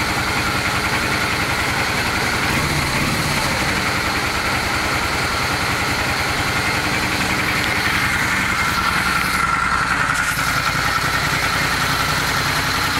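Honda Steed 400 V-twin engine idling steadily with a knock, which the owner traces to somewhere low in the rear cylinder.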